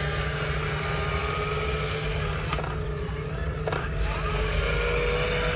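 Scale RC hydraulic excavator in Caterpillar 320 livery working: its hydraulic pump whines over a steady low hum, the whine gliding up and down in pitch as the boom lifts and the arm swings. Two short clicks come in the middle.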